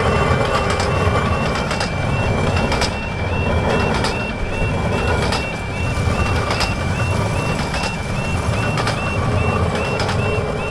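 Level crossing alarm sounding its two-tone yodel, stepping up and down about twice a second, over the running rumble of Romney, Hythe & Dymchurch miniature railway carriages crossing the road, with irregular clicks of wheels on the rails.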